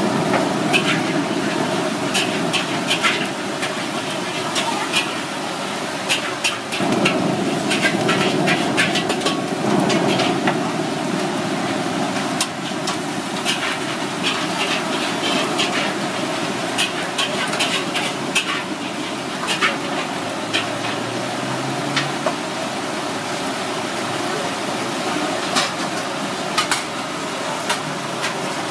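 Charcoal fire under a wire grill basket of mud crabs, crackling with frequent sharp pops over a steady sizzling rush.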